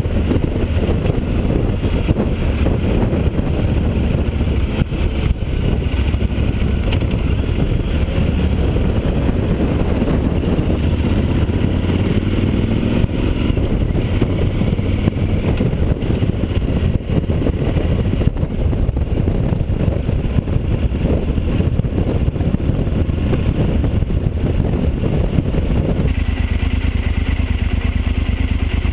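Yamaha XT1200Z Super Ténéré's parallel-twin engine running under way, picked up through an open-backed camera housing. The revs rise on a pull-away about twelve seconds in, and near the end the engine settles to a steady idle at a stop.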